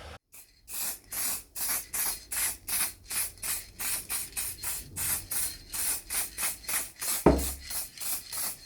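Short hissing strokes repeating about three times a second, with one heavy thump about seven seconds in.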